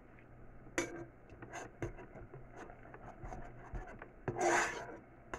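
A spoon stirring and scraping cornstarch paste in a saucepan, with irregular short scrapes and light knocks, and one longer, louder scrape about four and a half seconds in.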